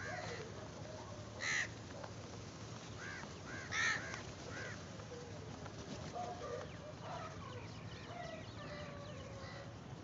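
A flock of house crows cawing, many calls overlapping, with two loud harsh caws about one and a half and four seconds in.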